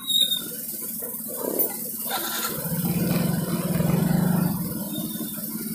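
Motor scooter engine running as it is ridden slowly, its note growing louder for about two seconds midway and then easing off. A brief high-pitched squeak sounds right at the start.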